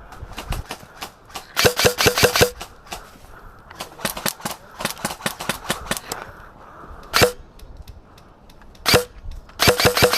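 Airsoft rifles firing: a quick burst of about six sharp clacking shots, scattered fainter shots, two single loud shots, and another rapid burst near the end.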